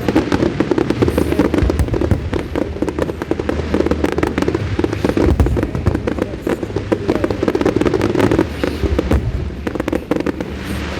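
Fireworks display in a dense, rapid barrage: many shells bursting with continuous crackling and popping, the bangs tightly packed without a break.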